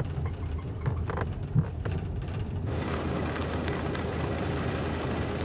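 A car running, with a steady low engine hum. About two and a half seconds in, a broader steady hiss joins it, as of the car moving along the road.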